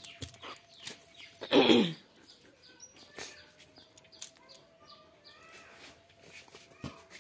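A German Shepherd dog makes one short whining vocal sound, falling in pitch, about one and a half seconds in.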